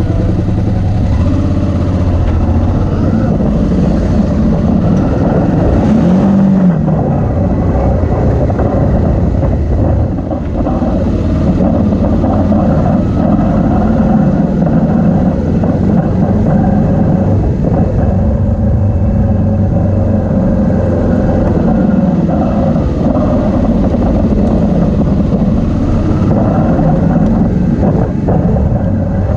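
A motorcycle engine heard from on the bike: it idles steadily for the first couple of seconds, its pitch rises about six seconds in as it pulls away, and then it runs continuously while riding along a dirt track.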